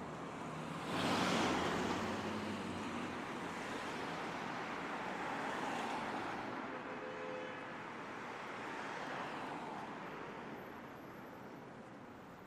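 Road traffic on a busy city avenue: steady tyre and engine noise from passing cars, with one car passing close about a second in, loudest as it goes by and then fading away.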